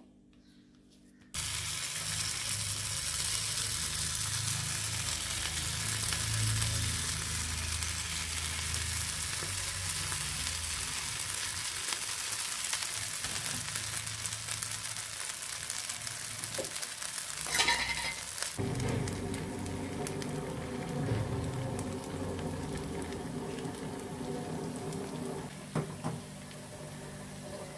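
Potato jilebi spirals deep-frying in hot oil: a steady sizzle that starts suddenly about a second in, with a brief louder flare about two-thirds through and a single knock near the end.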